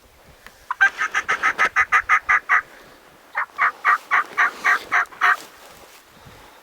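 Wild turkey yelping: two quick series of loud, evenly paced yelps, about a dozen notes, a short pause, then about eight more.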